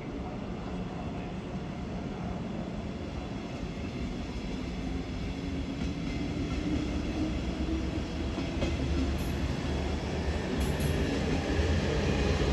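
DB Regio double-deck push-pull train rolling past, its Class 146.0 electric locomotive pushing at the rear, with a steady rumble that grows louder as it nears. A few faint clicks of the wheels sound in the second half.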